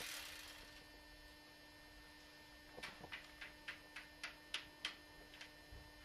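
A steady electrical hum, and in the second half a run of about ten light, sharp taps, about three a second, like a game piece being tapped from space to space along a board.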